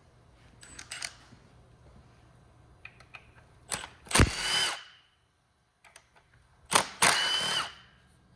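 Cordless power driver running in two short bursts of about a second each, backing out engine bolts, with a few light metal clinks before the first run.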